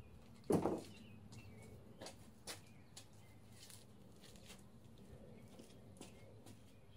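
A single dull thump about half a second in, then a few scattered light clicks over faint outdoor background with birds chirping.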